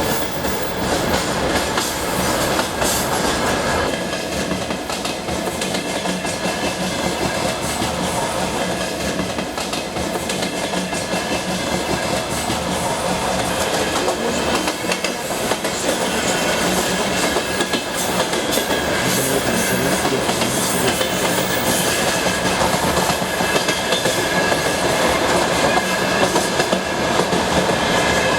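Passenger train running at speed, heard from aboard the carriage: steady rumble of the wheels on the track, with the clickety-clack of the wheelsets striking the rail joints.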